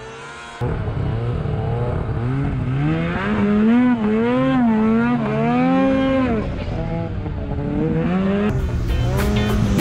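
Snowmobile engine revving under throttle while the sled runs through snow, its pitch rising and falling repeatedly. Music with a beat comes in near the end.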